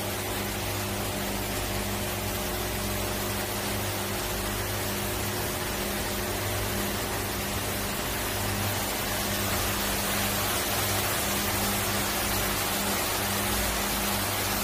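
Steady hiss of fine mist spraying from the nozzles of a rail-mounted greenhouse boom sprayer (Sunnong SN-17) over seedling trays, with a steady low hum underneath. It grows a little louder about two-thirds of the way through.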